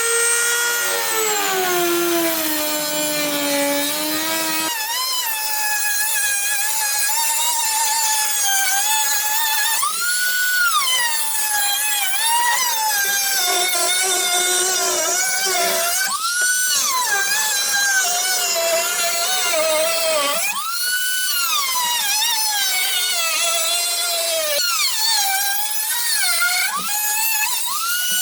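Small high-speed power cutting tool running under load, its motor whine rising and falling in pitch as it bites into the material and frees up again.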